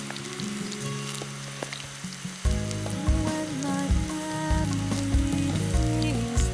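Tempura sizzling and crackling in hot frying oil, under background music whose deeper bass part comes in about two and a half seconds in.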